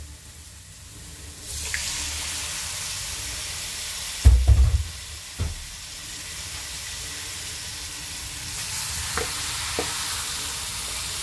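Hot oil and spices sizzling in a wok as raw chicken livers and then chicken gizzards are tipped in. There are heavy thuds about four seconds in and again a second later as the meat lands, and the sizzle brightens again near the end.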